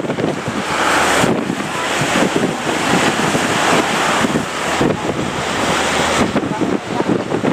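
Strong wind buffeting the microphone over the rush of breaking surf, a loud noise that swells and eases in gusts.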